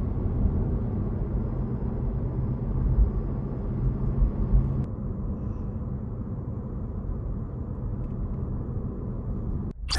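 Steady low road and tyre rumble heard inside a Honda Civic e:HEV's cabin while it drives along a straight road.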